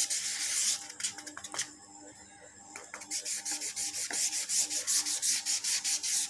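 Sponge brush rubbing wet acrylic paint onto the inside of a cardboard box, in quick regular scratchy strokes several times a second. The strokes pause briefly about a second and a half in, then resume at a steady pace.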